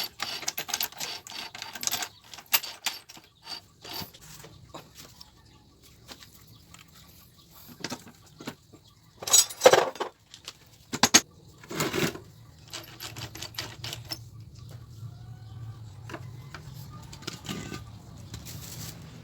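Hand tools and metal engine parts clicking and clinking during work on a small motorcycle engine, with a few louder knocks about ten seconds in.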